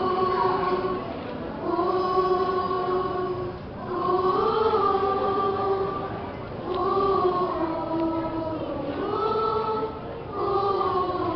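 Speech choir of young voices singing held notes together, in phrases of about two seconds with short breaks between.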